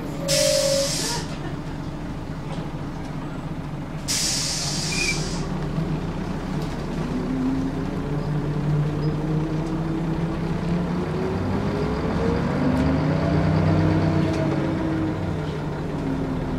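Scania L94UB single-decker bus with its Scania DSC9 diesel, heard from inside the saloon: two short hisses of compressed air, at the start and again about four seconds in, then the engine pulls away, its note rising steadily for several seconds before falling back and beginning to climb again near the end.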